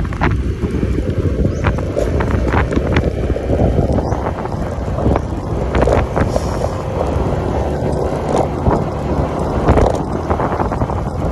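Wind buffeting the microphone of a phone on a Yamaha motor scooter riding at low speed: a dense, steady rumble with short gusts, over the scooter's running and road noise.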